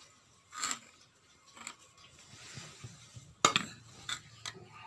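Kitchen utensils clinking: a few sharp metal knocks and clinks, the loudest about three and a half seconds in.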